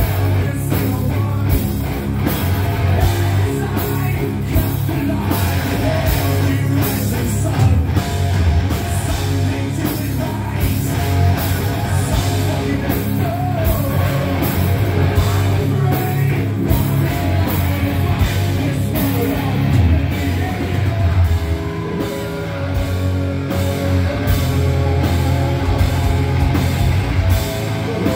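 Live heavy rock band playing loud: distorted electric guitars, bass and drums keeping a fast steady beat, with a singer's voice over them.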